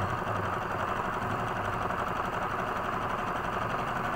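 Portable electric sewing machine running steadily, its needle stitching through fabric at a fast, even rate.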